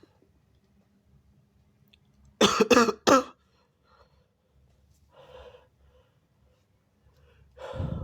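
A person coughing three times in quick succession about two and a half seconds in, loud and sharp, with quieter breaths afterwards.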